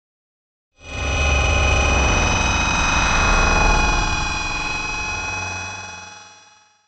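Factory machinery running: a heavy low rumble under several steady high whines. It starts suddenly about a second in and fades out near the end.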